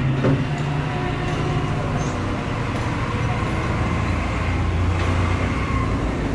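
City street traffic, with a heavy motor vehicle's engine running close by as a steady low hum that eases off after about two seconds and comes back more strongly later.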